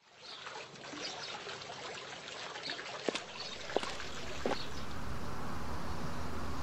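Soft trickling, water-like noise with light high chirps, then three sharp clicks about 0.7 s apart, high heels stepping on stone. After that a steady low rumble builds.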